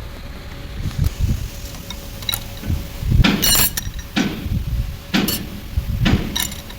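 Metal tools and truck gearbox parts clinking and knocking against each other during transmission repair work: a series of sharp metallic clanks, the loudest ringing briefly about three and a half seconds in.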